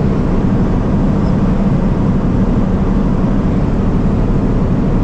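Steady engine and tyre noise heard from inside the cab of a vehicle being driven along a road, an even low rumble with no breaks.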